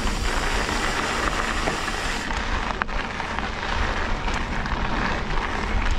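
Mountain bike riding a dirt trail: tyres crackling over dirt and gravel, with wind rumbling on the microphone and a single sharp click a little before three seconds in.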